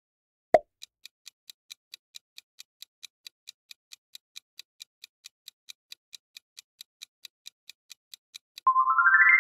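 Quiz countdown-timer sound effect: a single thump, then steady clock-like ticking at about four to five ticks a second. Near the end a rising run of chime tones rings out as the countdown ends.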